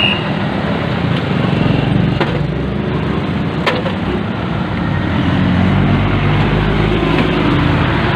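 Vehicle engine running steadily under a rush of road noise while riding inside, with a couple of brief light knocks.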